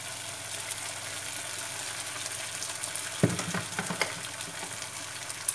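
Minced lemongrass and chili sizzling steadily in a little olive oil in a nonstick frying pan, with a few sharper knocks about three and four seconds in.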